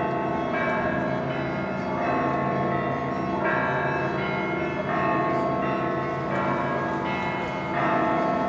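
Russian Orthodox church bells being rung, several bells struck over and over. Each new stroke sounds before the last has died away, so the tones overlap and ring on into one another.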